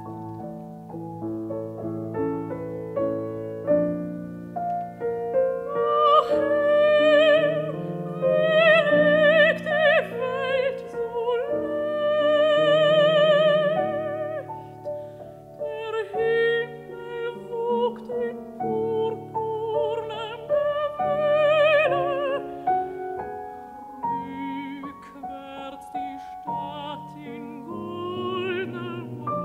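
Classical art song: a mezzo-soprano singing in German with wide vibrato over piano accompaniment. The piano plays alone at first, and the voice comes in about four seconds in, rising to loud held phrases.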